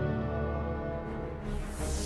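Background music: sustained chords, with a falling whoosh sweeping down from high to low near the end.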